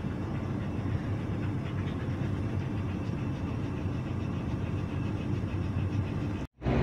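A car driving, with steady engine and road noise. It cuts out abruptly for a moment near the end and comes back louder.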